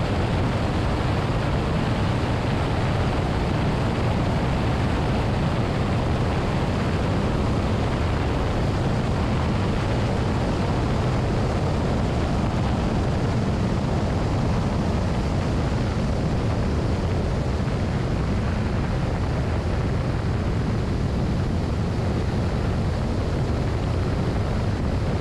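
Velocity canard aircraft in flight with power on, heard from a camera mounted outside the airframe: a steady, dense rush of airflow and engine noise, heaviest in a low rumble and unchanging throughout.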